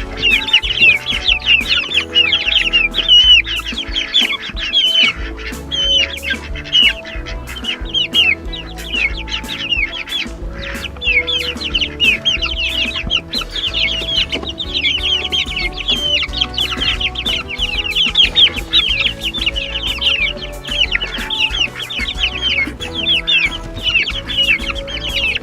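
A brood of two-week-old chicks peeping without pause, many short, high, falling calls overlapping, over background music.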